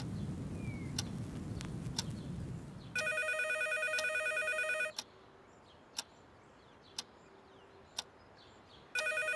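Telephone ringing in the usual two-seconds-on, four-seconds-off cadence: one ring of about two seconds, a pause, and the next ring starting near the end. A clock ticks about once a second in the pause, and a low rumble fades away before the first ring.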